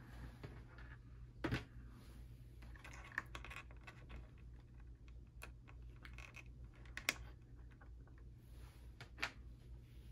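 Faint clicking and handling noise from fingers working a small plastic KW4 microswitch and its wires, with a few sharper clicks spread through, over a low steady hum.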